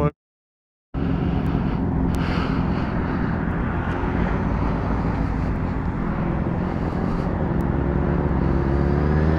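Motorcycle engine running at a steady speed under heavy wind rush on the microphone while riding. It starts about a second in, after a moment of silence.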